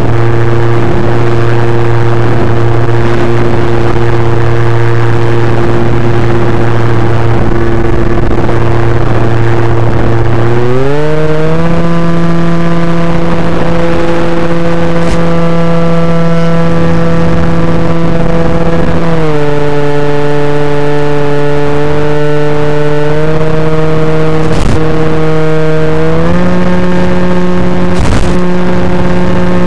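Electric motor and propeller of an FPV model plane running steadily, heard through the onboard microphone. The pitch rises smoothly about a third of the way in as the throttle opens, drops back a little past halfway, and rises again near the end. A few short crackles of radio interference cut in.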